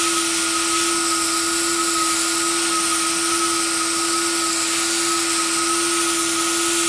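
Hot-air plastic welder blowing steadily, its fan motor humming at one constant pitch over a strong rush of air, while it heats a plastic kayak hull and the welding rod.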